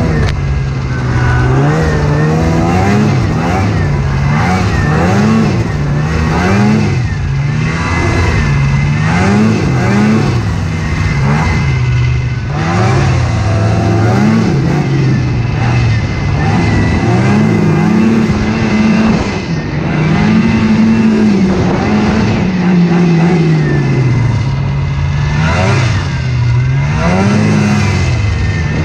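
Polaris snowmobile engine running under load as the sled climbs, its pitch rising and falling again and again as the throttle is opened and eased off.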